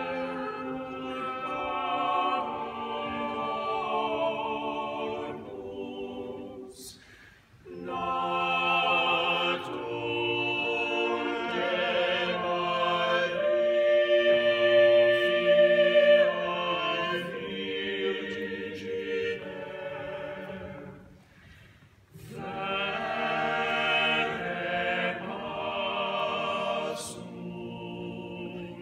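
A small mixed choir of women's and men's voices singing unaccompanied in sustained chords. The singing stops twice between phrases, about a quarter of the way in and again about three quarters of the way in, and the sound fades almost to nothing before the next phrase begins.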